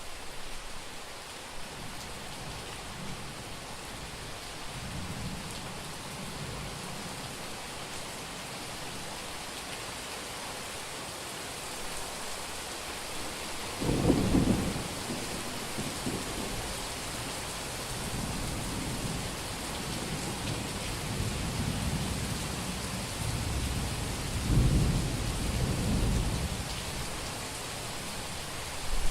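A summer thunderstorm: heavy rain falls steadily while thunder rumbles. A loud peal comes about halfway through, rolling thunder follows, and another strong peal comes near the end.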